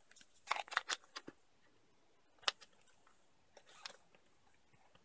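Quiet handling noises of a small food tin, its blue plastic lid and the little packets it holds as they are packed and set down. A few rustles and light clicks come in the first second or so, then a single sharp click about halfway through, and a brief rustle near the end.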